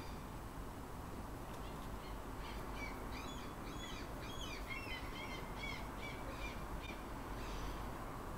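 A bird singing a run of quick chirping notes, about three a second, starting about two seconds in and lasting around five seconds, over a steady low room hum.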